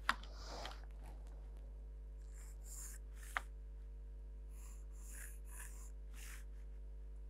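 Pencil drawing on paper: several short, soft scratching strokes, with a couple of light clicks as the pencil or set square is set down. Under it runs a faint steady hum.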